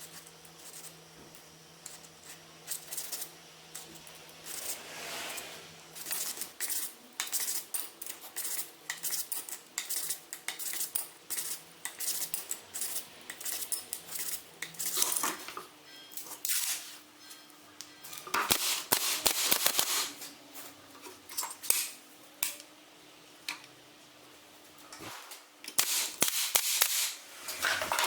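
Irregular clicking, knocking and clattering of small hard objects, such as tools and parts being handled on a workbench. There are longer noisy rasps about two-thirds of the way through and again near the end.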